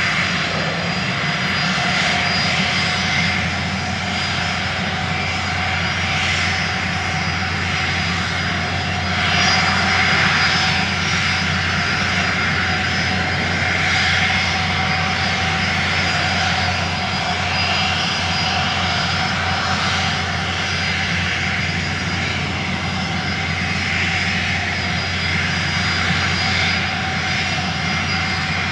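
Steady motor hum with a high whine over rushing air noise, holding an even pitch throughout.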